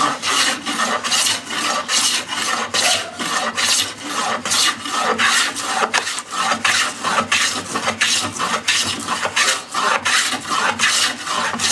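Hand plane shaving a rough-sawn board in quick, repeated strokes, about two to three a second, each pass a rasping scrape of the blade along the wood.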